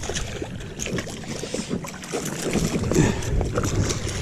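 Wind buffeting the microphone, with irregular small clicks and knocks of handling throughout.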